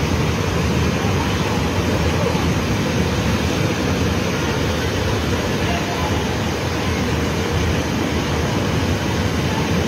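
Swollen, muddy river in flood rushing over a low paved crossing: a loud, steady rush of water with no let-up.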